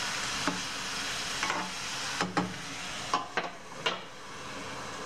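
Broccoli and green beans sizzling in oil in a non-stick frying pan as a spatula stirs them, with several light knocks of the utensil against the pan. Near the end a perforated splatter-guard lid is set on the pan.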